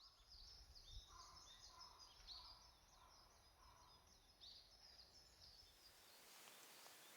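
Wild birds singing: several quick, repeated high chirps, with a second bird giving a run of lower repeated notes. The calls die away about six seconds in, leaving a faint steady hiss.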